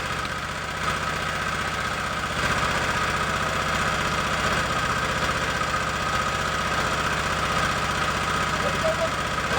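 Fishing boat's engine running steadily at a constant speed, with a rapid, even beat and a steady whine.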